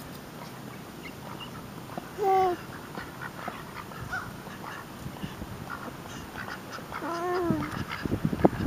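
Domestic ducks crowding around at close range, with two short calls, one about two seconds in and another near seven seconds, over scattered soft clicks that grow louder near the end.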